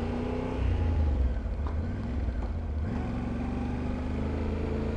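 Motorcycle engine running under way, its note climbing as it accelerates, dropping away about a second in and climbing again near the middle, over low wind rumble on the microphone.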